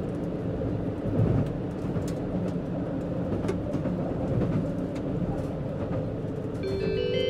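Running noise inside a KiHa 85 series diesel railcar: a steady low rumble of wheels on rail and machinery, with a few sharp clicks as the wheels cross rail joints and points. Near the end an onboard chime melody starts up ahead of the arrival announcement.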